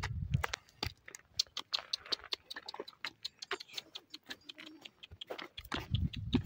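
A walking donkey's hooves clip-clopping on dry stubble ground: a quick, uneven run of sharp clicks, with a low rumble near the start and again near the end.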